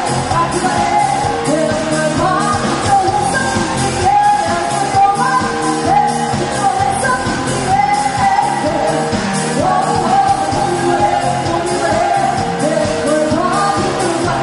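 A rock band playing with a singer, the vocal line gliding over a steady drum beat.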